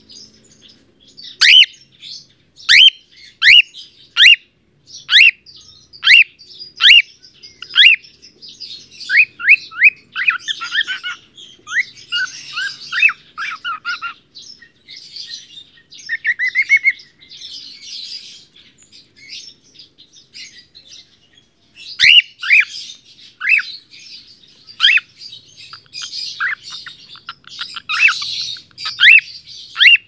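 A cockatiel calling: short, sharp chirps that drop in pitch, repeated about once a second and coming faster in a run near the middle. About two-thirds through the calls give way to a softer, noisier chatter and a brief lull, then the chirps resume.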